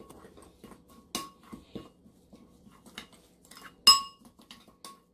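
Metal spoon scraping and clinking against a ceramic bowl while stirring a paste of ground herbs and oil. A run of light taps, with sharper ringing clinks about a second in, about three seconds in, and loudest just before four seconds.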